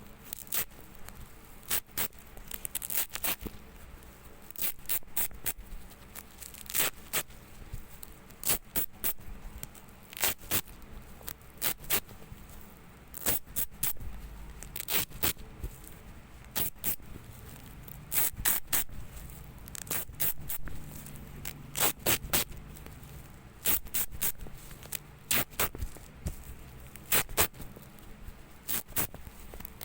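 Velcro (hook-and-loop) tape being pulled apart over and over: short, crackly ripping strokes, often several in quick succession, with brief pauses between.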